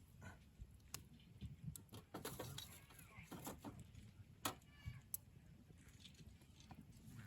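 Wood campfire crackling faintly, with scattered sharp pops and snaps, the loudest about four and a half seconds in.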